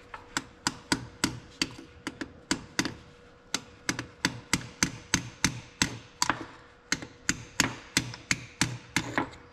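A hammer tapping a seal remover tool, steady light taps at about three a second, driving it in under a tough inner brake seal in the housing of an Oliver 1855 tractor's dry brakes.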